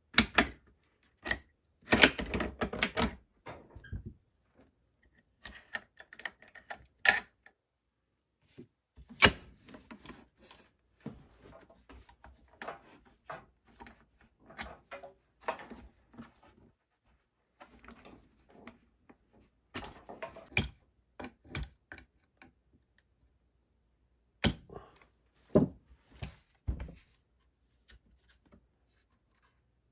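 Irregular clicks, knocks and rattles of metal and polymer parts as a Century Arms Draco NAk9X AK-pattern 9mm pistol is handled and its furniture fitted. The sounds come in short flurries with quiet gaps between them.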